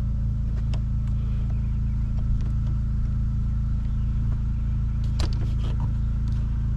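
An engine running steadily at a constant speed, with a few light clicks and knocks on top.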